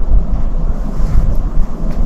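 Wind buffeting the microphone: a loud, low rumble that surges unevenly.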